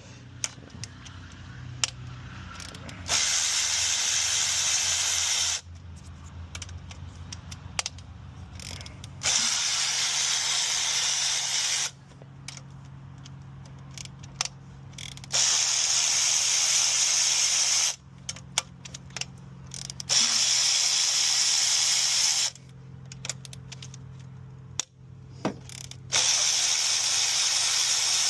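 Ratchet wrench backing out the 10 mm plenum bolts. It goes in five even runs of fast ratcheting, each about two and a half seconds long, with scattered clicks and clinks of the tool and bolts in between.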